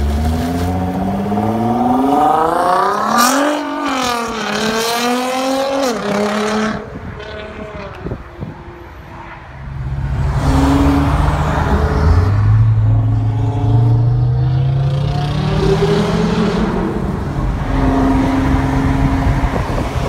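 Nissan GT-R R35's twin-turbo V6 through an Armytrix aftermarket exhaust, accelerating hard. The engine note rises, drops at a gear change, rises again and then fades away. A few seconds later a second loud pull climbs steadily in pitch.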